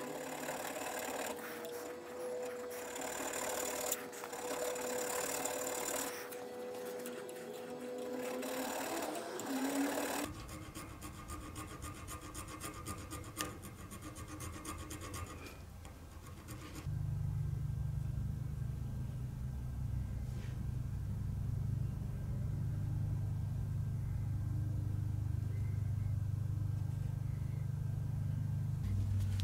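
Flat hand file rasping in strokes across a small metal bar clamped in a vise, for about the first ten seconds, then fainter scraping. From about seventeen seconds in, a steady low hum takes over.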